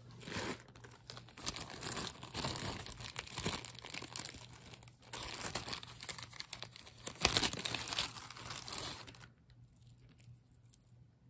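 Clear plastic zip-top bags crinkling as they are handled, in a run of irregular rustles with the loudest about seven seconds in; the rustling stops about nine seconds in.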